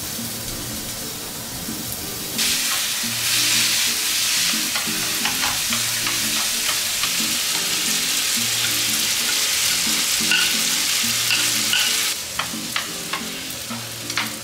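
Food sizzling in a hot frying pan. The sizzle jumps up suddenly about two seconds in, as if something is added to the pan, and drops away again near the end. A few clicks follow, with faint background music underneath.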